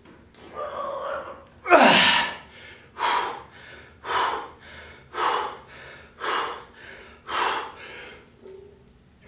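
A man's hard, forceful breaths through the mouth, gasping exhalations about one a second, the loudest about two seconds in: he is winded under a loaded barbell during a heavy set of squats.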